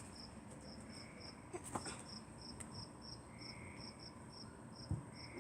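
Crickets chirping steadily, a faint, high, even pulse of about three to four chirps a second.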